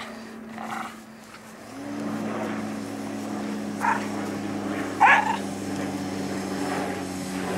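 A dog barking three times, short single barks spread over several seconds, over a steady motor hum that gets louder about two seconds in.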